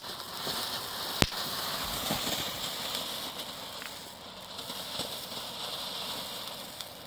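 Funke Reisblüte F2 ground fountain burning with a steady hiss of sparks, with one sharp crack about a second in. The hiss slowly fades over the last few seconds as the fountain burns down.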